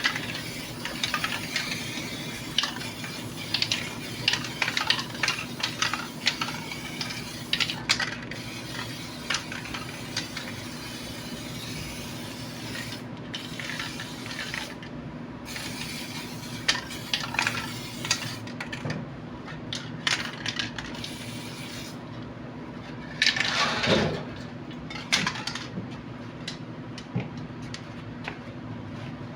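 Small metal parts and tools clinking and tapping in quick irregular clicks over a steady low hum, with one louder, longer sound about three-quarters of the way through.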